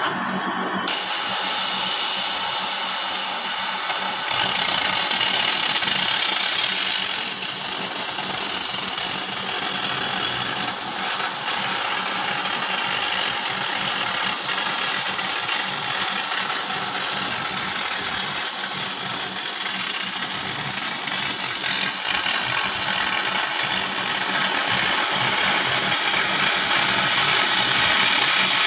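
Oxy-fuel cutting torch on a CNC cutting machine burning through 20 mm mild steel plate: a loud, steady hiss of the flame and cutting-oxygen jet. It steps up abruptly about a second in.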